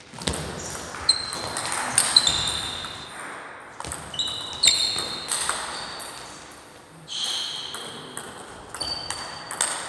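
Table tennis rally with a plastic 40+ ball: a run of sharp clicks as it strikes the paddles and the table, ringing in a large hall, with a short lull about two thirds of the way through.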